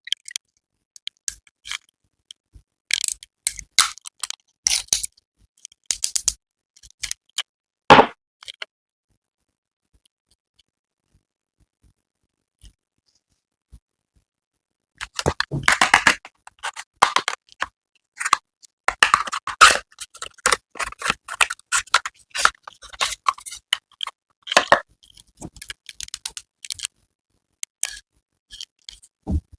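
Skincare packaging being handled: irregular crinkling and rustling, with small clicks and taps. It stops for several seconds partway through, then comes back in denser bursts.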